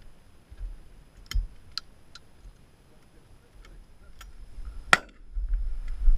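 Sharp metallic clicks of a side-by-side shotgun being handled and loaded: several light clicks in the first half, then a louder sharp crack about five seconds in. A low rumble of wind on the microphone follows.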